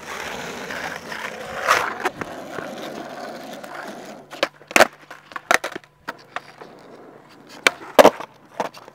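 Skateboard wheels rolling on asphalt for the first few seconds, then several sharp clacks of the board striking the pavement, typical of trick attempts and landings, the loudest near the end.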